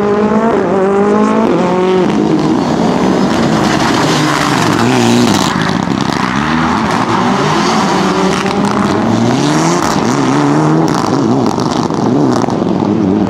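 Mitsubishi Lancer Evo IX rally car's turbocharged 2.0-litre four-cylinder engine revving hard through tight corners, its pitch climbing and dropping again and again as the driver goes on and off the throttle and shifts gear.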